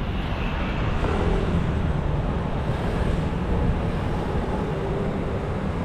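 Steady street traffic noise, mostly low-pitched, from vehicles running along the road.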